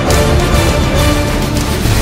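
Loud music soundtrack with sustained held tones over a heavy low end.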